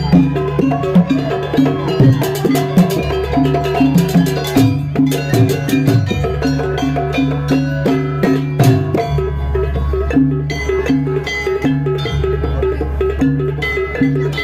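Javanese jaranan gamelan music: a repeating pattern of short metallic pitched notes over drumming, with a low sustained tone that swells in and out.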